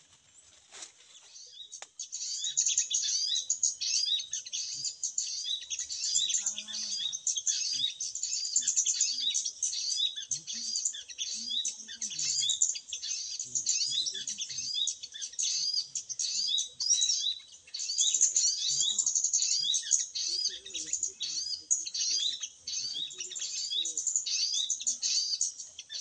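Recorded bird calls played as a lure for lime-stick trapping: dense, rapid, high chirping that starts suddenly about two seconds in and repeats without a pause.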